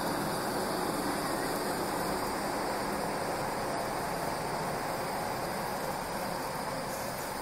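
Steady rushing noise of a railway platform beside an ED4M electric train, growing slightly quieter toward the end.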